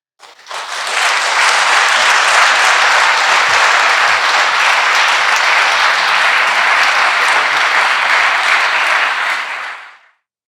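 Audience applauding, a dense steady clapping that starts about half a second in and dies away near the end.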